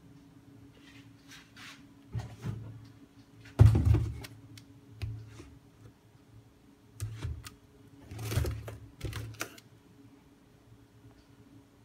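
A cardboard shipping box and its plastic wrapping being handled: an irregular series of rustles, scrapes and knocks, the loudest about three and a half seconds in and another cluster near the end, over a faint steady hum.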